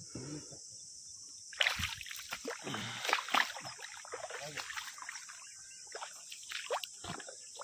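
Shallow muddy water splashing and sloshing as fish are caught in a drained pond. It comes in irregular splashes starting about a second and a half in.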